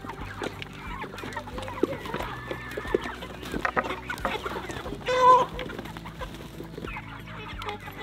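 A flock of meat chickens clucking and calling over one another, with one loud, drawn-out call a little past the middle.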